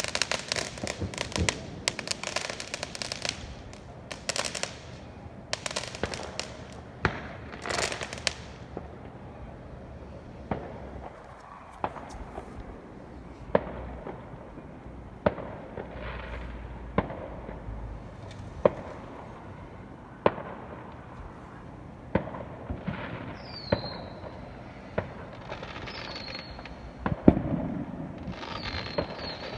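Fireworks going off: dense crackling bursts for the first eight seconds or so, then single sharp bangs every second or two, with a few short falling whistles near the end.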